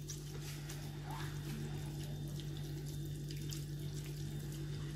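Fingers mixing a wet chermoula marinade of herbs, vinegar and water in a glass bowl: faint liquid swishing with a few small wet clicks, over a steady low hum.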